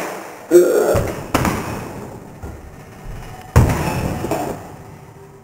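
A series of heavy thuds and smacks from a staged fistfight, about four in all. The loudest comes about three and a half seconds in, as a man's body hits the floor.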